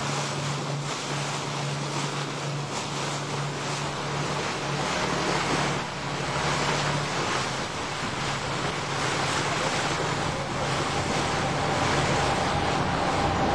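Lake passenger ferry underway: a steady low engine hum under the rush of water along the hull and wind on the microphone. Over the last few seconds a steady higher whine joins in.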